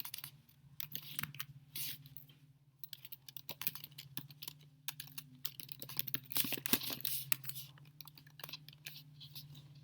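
Rapid, irregular clicking and tapping, like typing on a keyboard, over a steady low hum; the clicks come thickest about two thirds of the way through.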